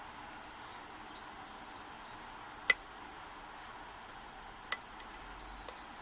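Two sharp metallic clicks about two seconds apart, and a fainter tick just after, from a lock pick working the spool pins of a Yale Y125/40 padlock under light tension; the picker takes them for a pin dropping back down.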